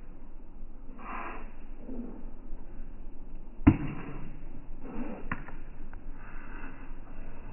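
Pickleball rally: sharp pops of the hard plastic ball being struck, one loud about halfway through and a fainter one about a second and a half later.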